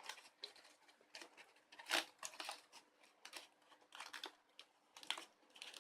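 Faint crinkling and scattered clicks of a flexible exhaust hose being pushed and worked onto a fume extractor's fitting, a tight fit. The sharpest click comes about two seconds in.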